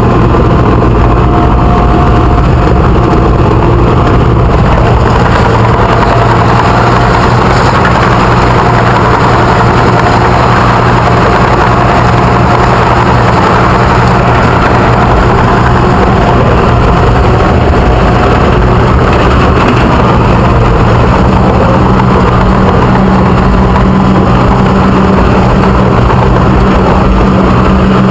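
Caterpillar bulldozer's diesel engine running loud and steady with the machine in high, heard from on board; a second tone in its note grows stronger over the last several seconds.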